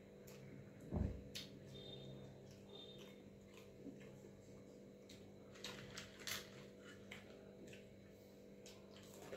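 Faint sounds of eating by hand: fingers working soft wet rice and chewing, with scattered small clicks, a cluster of them a little past halfway, and a low thump about a second in, over a steady low hum.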